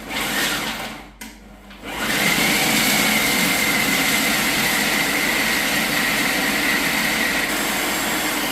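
Food processor motor grinding dry raw-cake ingredients such as cacao powder and coconut shreds. A short pulse is followed by a brief pause about a second in, then the motor runs steadily with a high whine, grinding the mix down to a fine, slightly crunchy flour.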